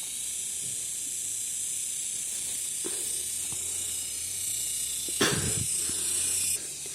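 A steady high hiss over a low hum, cutting off suddenly near the end, with one short knock about five seconds in.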